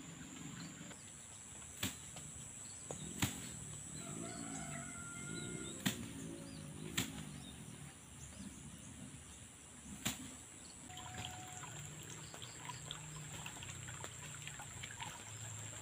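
Rural outdoor ambience: chickens clucking in low, wavering calls with a few short bird chirps, over a steady high insect buzz. Several sharp clicks stand out, the loudest about 6 s and 10 s in.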